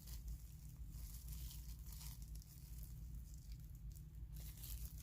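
Faint, irregular squishing and crackling of a thick white-glue slime packed with small clay pieces as it is handled and pressed.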